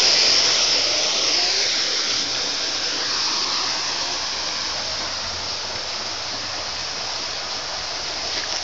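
Small waterfall splashing steadily, a rushing hiss that slowly fades as the sound moves farther away from it.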